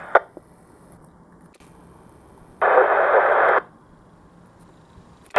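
Airband radio receiver between ATC transmissions: a squelch click just after the start, then about a second of hiss in the middle as a transmission opens and closes with no voice on it.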